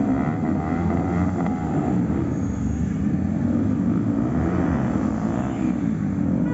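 Several motorcycle engines running together in a steady drone.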